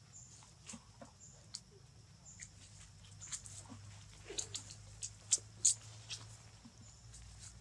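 Macaques scrambling over dry leaf litter: quick rustles and sharp clicks, busiest in the middle, with a few short animal cries among them.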